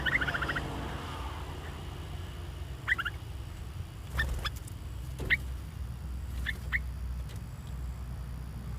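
Caged bulbuls calling: a short trilled chirp at the start, then brief sharp chirps in twos and singles every second or so, over a steady low rumble.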